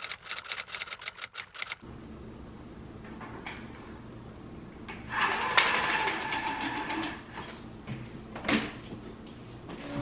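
Rapid typewriter-style key clicks, a text-typing sound effect, for about two seconds. A few seconds later comes the loudest part: the rattle and scrape of horizontal window blinds being pulled up for about two seconds, with a single knock near the end.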